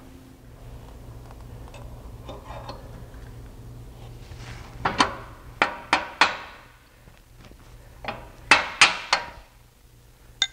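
Mounting bolt being tapped through the torque arm's bracket on the rear end: sharp metal-on-metal taps, about four a little over halfway through and three more a few seconds later.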